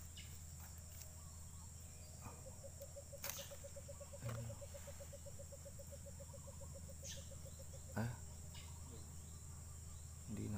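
Steady high-pitched insect drone, with a rapid low trill of about eight pulses a second running for some five seconds in the middle, and a few faint clicks or knocks.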